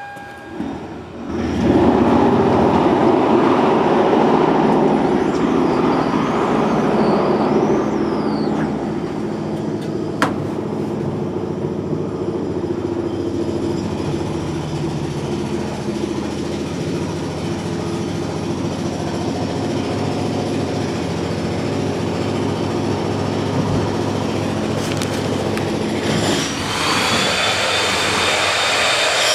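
Jackhammer hammering continuously, starting about a second and a half in. A high steady whine joins near the end.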